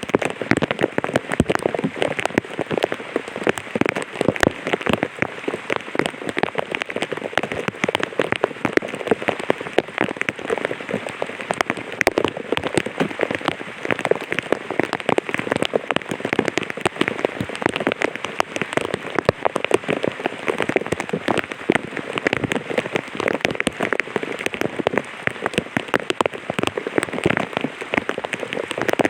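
Light rain falling on an umbrella: a dense, steady stream of separate drop taps that neither builds nor eases.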